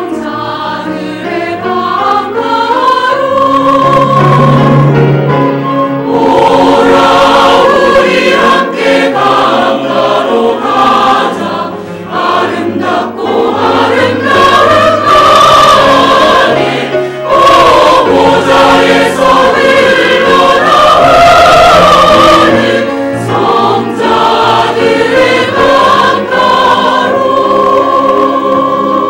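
Church choir singing an anthem in parts with accompaniment, loud and sustained, easing near the end into a held instrumental note.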